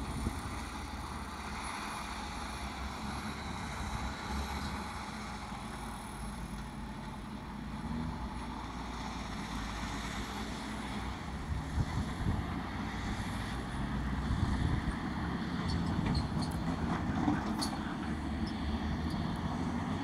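Diesel engines of a Komatsu D65PX crawler dozer and articulated dump trucks working on an earthmoving site, heard as a steady rumble, with a few faint clicks about three-quarters of the way in.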